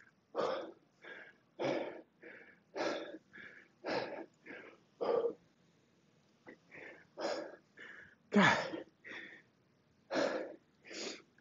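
A man breathing hard in short, forceful breaths, about one or two a second, with a brief pause a little past halfway: out of breath after a long set of heavy kettlebell swings.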